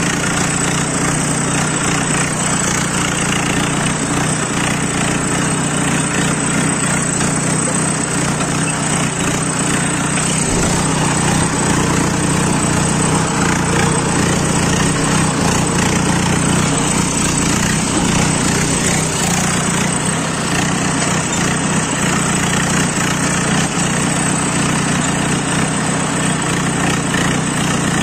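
Mahindra Yuvo 585 tractor's diesel engine running steadily under load, pulling a tine cultivator through hard, dry soil.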